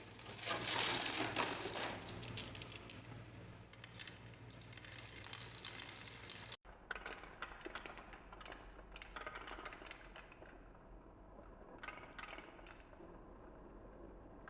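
Balls rolling and clattering down a wooden marble run: a dense rattle of small knocks, loudest about a second in, then after a brief break, shorter bursts of clattering every couple of seconds.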